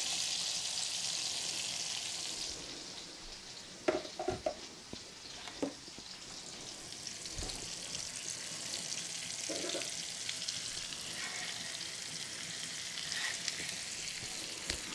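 Food sizzling in hot oil in a frying pan: a steady hiss, louder in the first couple of seconds, with a few light knocks partway through.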